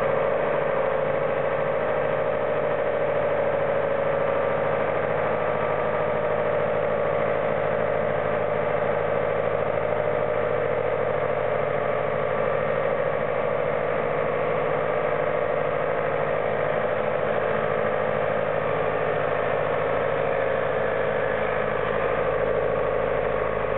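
Farm tractor's diesel engine running steadily while the tractor clears snow with its front loader.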